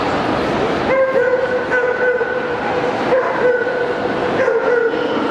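A dog whining in drawn-out, slightly wavering cries that start about a second in and carry on, breaking and restarting every second or so, over the hubbub of a crowded hall.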